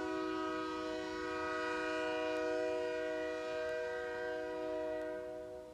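A train horn sounding one long, steady blast, a chord of several tones held at one pitch, fading out near the end.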